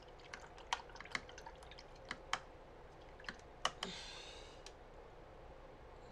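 Light clicks and taps on a hard surface, about a dozen over the first four seconds, then a brief watery swish about four seconds in.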